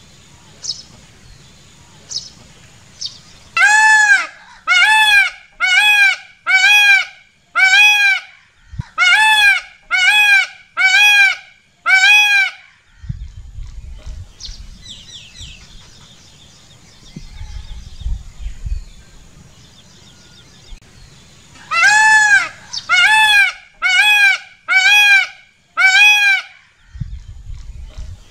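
Peacock (male Indian peafowl) giving its loud call in two series: about nine calls roughly a second apart, then after a pause five more near the end, each call rising and falling in pitch. Small birds chirp faintly in between.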